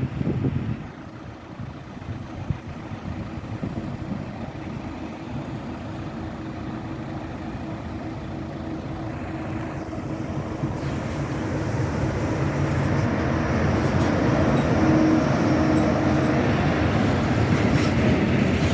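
Approaching freight train hauled by an ÖBB Taurus class 1116 electric locomotive, growing steadily louder, with a steady low hum.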